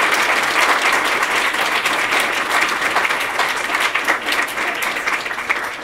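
Audience applauding, a dense patter of many hands clapping that slowly dies down near the end.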